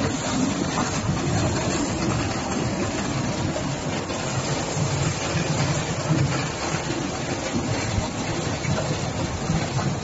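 Stainless-steel tripe washing machine running, a steady mechanical rumble from its drum as the tripe is tumbled inside.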